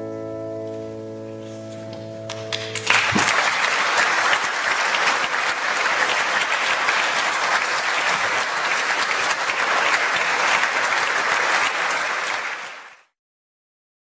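A grand piano's final chord rings on and fades; about three seconds in, an audience breaks into steady applause, which cuts off abruptly near the end.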